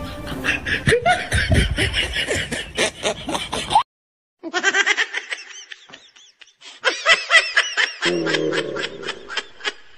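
A person laughing in quick repeated bursts. The sound cuts to dead silence for about half a second a little before four seconds in, then the laughing resumes in further bursts.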